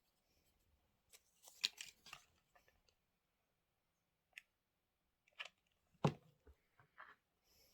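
Faint tabletop handling of paper and fabric craft pieces: scattered rustles and small clicks, with a louder knock about six seconds in.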